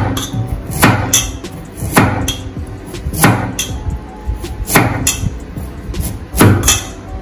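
Knife chopping carrots on a cutting board: heavy strikes about once a second, with lighter taps between.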